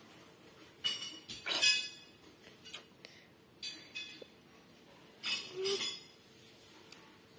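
A steel spoon clinking against a drinking glass several times, sharp metallic clinks with a short ring after each, as juice is scooped out to be tasted.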